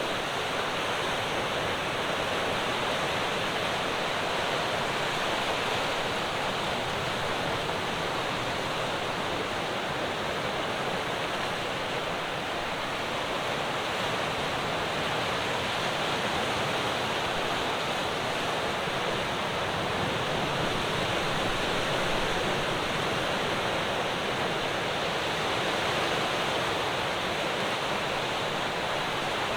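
Ocean waves breaking on the shore, a continuous wash of surf that swells and eases only slightly in level.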